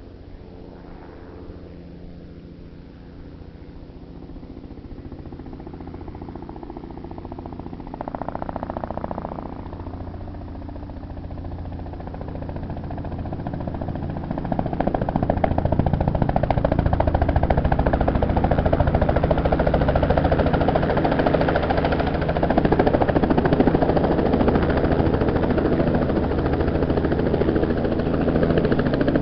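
Robinson R44 piston-engined helicopter approaching: its engine and rotor drone grows steadily louder over the first half, then holds loud and steady.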